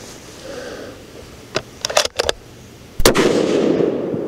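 A Sig Cross .308 Winchester rifle with a muzzle brake and no suppressor fires a single shot about three seconds in; the report is the loudest sound and dies away over the following second. A few sharp clicks come shortly before the shot.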